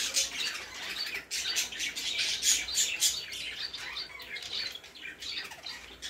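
Caged pet birds calling: a dense, continuous chatter of short, high calls.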